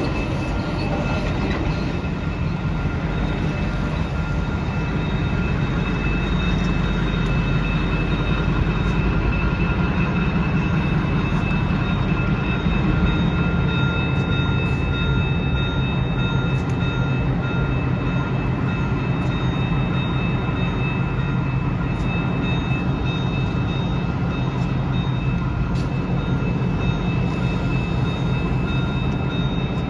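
Two diesel locomotives running light with a steady engine drone and a thin, steady high whine above it.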